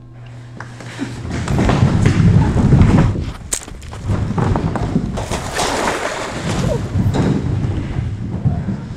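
A group of people crawling and scrambling on a hard studio floor: a dense rush of thumps, knocks and scuffing from hands, knees and bodies, which swells about a second in and falls away near the end.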